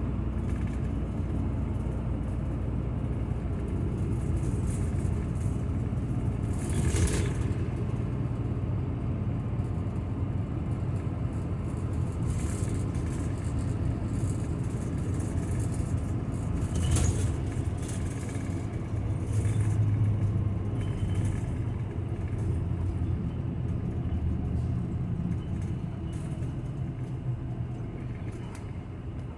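Route bus running, heard from inside the cabin: a steady engine and road rumble. Two brief louder rushes of noise come about a quarter of the way in and just past halfway, and the engine hum grows louder for a couple of seconds about two-thirds of the way through.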